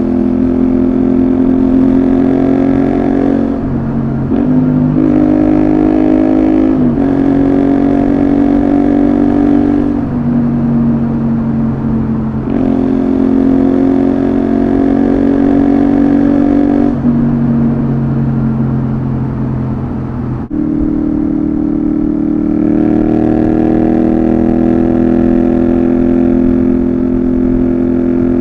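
Honda VTR250's V-twin engine running through a Moriwaki Engineering complete exhaust system while the bike is ridden: the engine note climbs and falls with throttle and gear changes several times, with a brief drop off the throttle about two-thirds of the way through.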